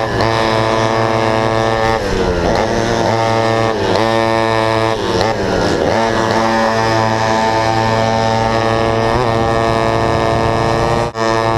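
Vintage McCulloch MC-91 two-stroke kart engine racing. The pitch dips and climbs again several times through the turns, with a second kart engine close ahead, then rises steadily at full throttle down the straight. The sound drops out briefly near the end.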